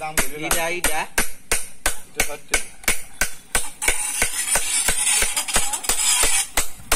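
Hammer tapping a steel chisel against a stone grinding slab (shil) about three times a second, pecking fresh dents into its face to roughen it for grinding. A voice sounds in the first second, and a hiss rises under the taps in the middle.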